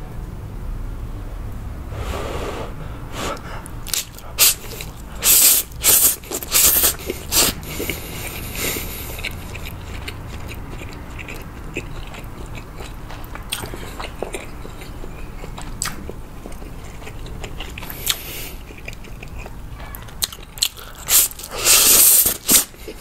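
Close-miked eating of stir-fried instant noodles (Indomie Mi Goreng): mouthfuls slurped in loud noisy bursts a few seconds in and again near the end, with quieter chewing between.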